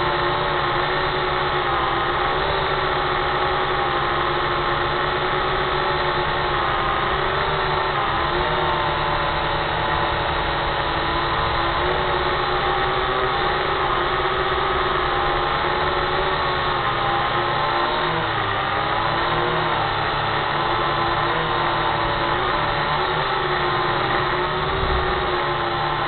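Small camera drone's motors and propellers whining steadily in flight, several tones together whose pitch wavers slightly as the motors change speed.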